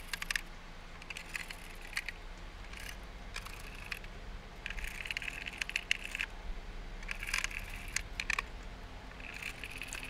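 Hand screwdriver turning small screws into the mixer's bottom panel: faint, irregular small clicks and short scratchy rasps as the screws are driven home.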